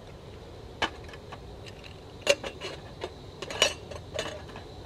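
Small titanium camp cup and lid clinking and tapping as they are handled and set down on a metal camp table: a series of sharp metallic clinks, the two loudest a little over two and about three and a half seconds in.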